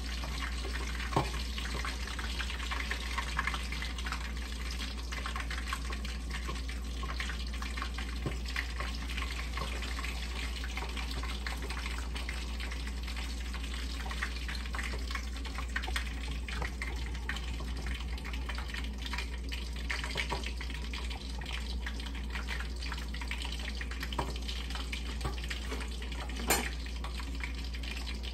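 Milkfish frying in hot oil in a covered pan: a steady hiss dotted with many small crackles and pops of spattering oil, with a sharper pop about a second in and another near the end.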